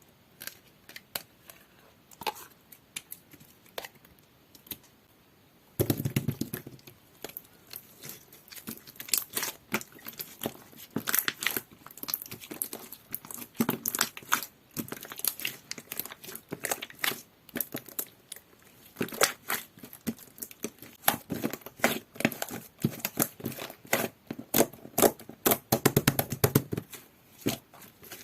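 Hands pressing, poking and stretching clear slime, making a string of sticky clicks and small air-bubble pops. Sparse for the first six seconds, then dense and continuous.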